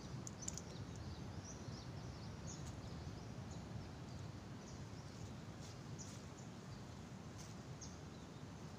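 Quiet rural outdoor ambience: a steady low hiss with scattered faint, short high chirps.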